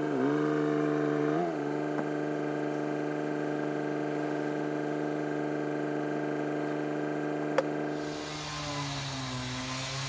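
Diesel engine idling steadily, its pitch dipping briefly twice in the first second and a half, with a single sharp click about seven and a half seconds in. Near the end the engine note drops and a hiss comes in.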